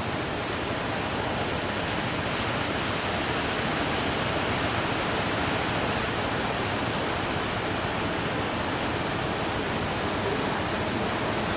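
Steady rushing noise of surf breaking at a river mouth, mixed with wind, with no distinct strikes or engine tone standing out.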